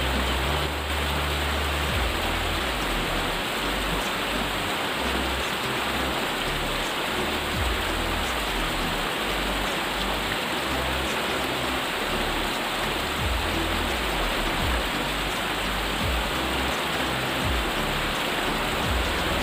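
Steady hiss of water, with an uneven low rumble underneath.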